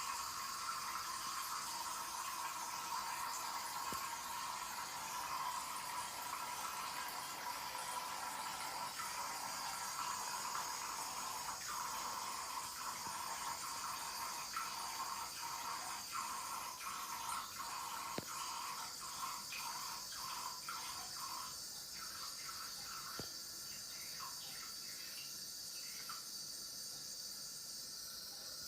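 Steady hiss of running water, with faint small clicks scattered through the middle part.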